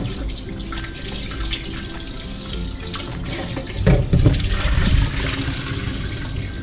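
Kitchen tap running into a metal pot in a stainless steel sink while hands rinse and turn pieces of cow feet, water splashing around them. The splashing and knocking grow louder about four seconds in.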